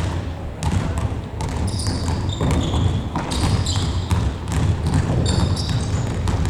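Futsal ball being kicked and bouncing on a gymnasium court, many sharp thuds, with short high squeaks of shoes on the floor and players calling out now and then.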